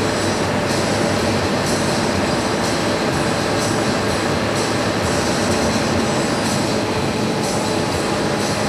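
Scania R500 semi truck's V8 diesel engine running steadily as the loaded truck rolls slowly, heard from inside the cab along with tyre and cab noise.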